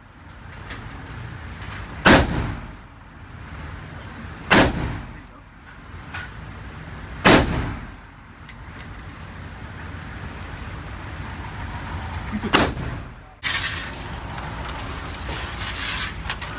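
Firearm shots at a shooting range: four loud shots, the first three about two and a half seconds apart and the fourth after a longer gap, each followed by an echoing tail, with two fainter sharp cracks in between.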